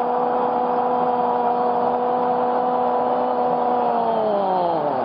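A steady hum with several overtones over a background hiss. Near the end its pitch sinks and it breaks off.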